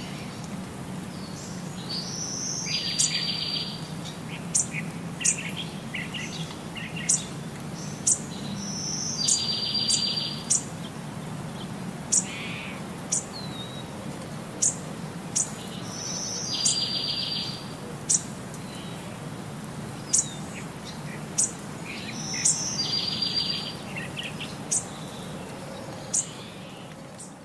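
Birds chirping: sharp high chirps about once a second, with a short buzzy trill coming back about every six to seven seconds, over a faint low hum.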